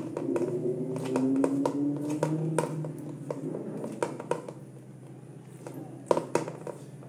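A hand mixing flour and water in a stainless steel bowl: scattered soft clicks and scrapes as the fingers work the dough against the metal, with a sharper knock about six seconds in.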